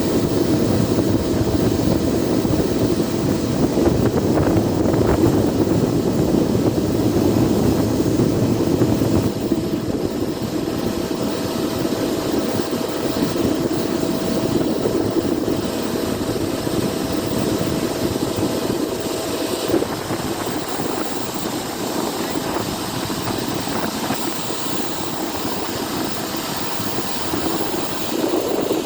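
Boeing 777's twin jet engines at takeoff power: a loud, steady rumble with a held whining tone that cuts off about twenty seconds in, the noise easing slightly in the second half.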